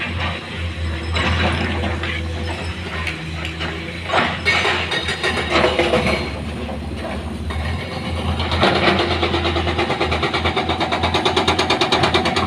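Heavy diesel machinery engine running with a steady low drone, with bursts of clattering about four and six seconds in and a fast, even pulsing of about five beats a second over the last few seconds.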